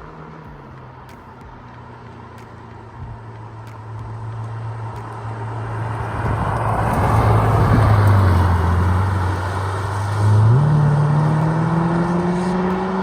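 Ferrari F8 Tributo's twin-turbo V8 driving past: the engine grows steadily louder, its pitch drops as it passes about 8 seconds in, then at about 10.5 seconds it jumps up in pitch and loudness and keeps rising as the car accelerates.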